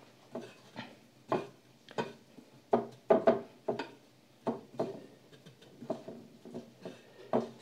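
Irregular soft taps and rustles of hands dipping and turning chicken pieces in white ceramic dishes of beaten egg and breadcrumbs while breading nuggets.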